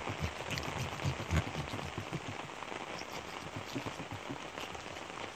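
Heavy rain falling on an umbrella overhead and the surfaces around it: a steady hiss dense with small drop ticks and scattered low thuds.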